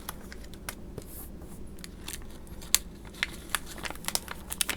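Small metal hardware and its packaging being handled and unpacked: scattered light clicks and rustles, coming closer together near the end.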